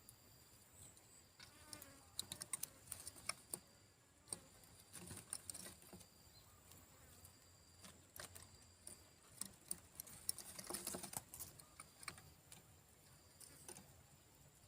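Near silence: faint scattered clicks and soft rustles over a faint steady high-pitched tone, with no dove calling.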